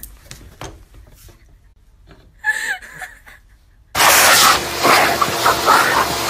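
A handheld air blower starts suddenly about four seconds in with a loud, steady rushing of air, the dog snapping at its nozzle. Before it there are only faint clicks and a short high squeak.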